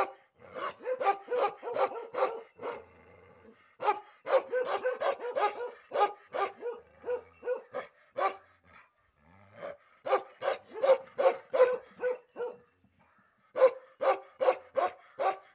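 Bakharwal dog barking aggressively in runs of rapid barks, about three a second, broken by a few short pauses.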